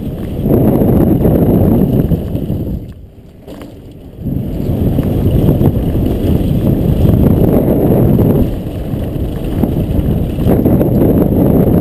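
Wind buffeting the microphone of a camera on a mountain bike riding a downhill trail, mixed with the rumble of the tyres and bike on the dirt. The sound drops briefly about three seconds in, then comes back at full level.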